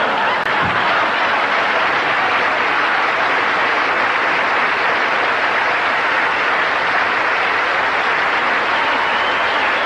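Large audience applauding steadily: the ovation at the end of a comedian's roast routine.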